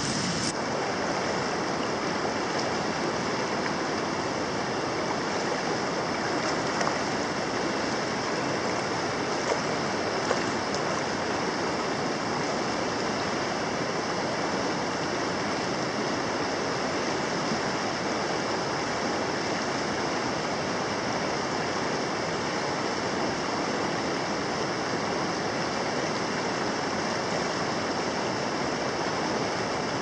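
River water flowing with a steady rush.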